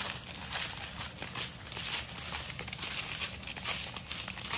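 Small plastic bags of diamond-painting drills and crystals crinkling and rustling in irregular handling noise as they are picked up and sorted.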